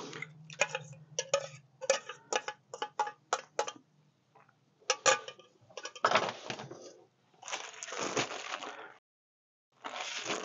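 Handheld crank can opener clicking as it is turned around the rim of a can of crushed pineapple, about three clicks a second for the first few seconds. Then two longer noisy sounds near the middle of the stretch.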